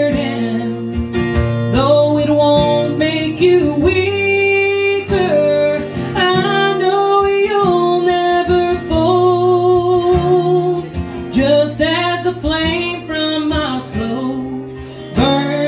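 A woman singing live with her own acoustic guitar, the guitar played steadily under long, held vocal notes with vibrato.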